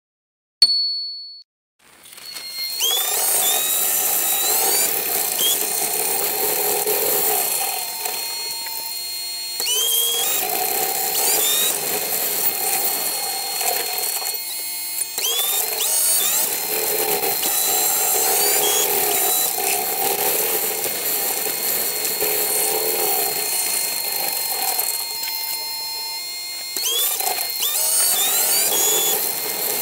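Diesel railcar (KiHa 110-series) running, heard from the driver's cab: engine and transmission whining, rising in pitch as it pulls away, easing off briefly a few times and picking up again. A short beep sounds near the start.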